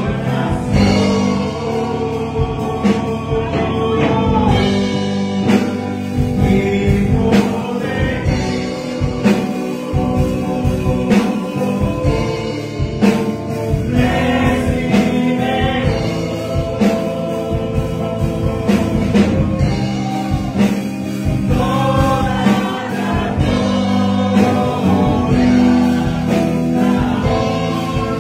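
Man singing a Spanish-language gospel worship song into a microphone, with instrumental accompaniment and a steady beat.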